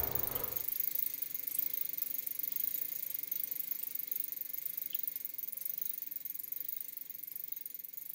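Faint hiss that slowly fades out after a louder sound cuts off about a second in.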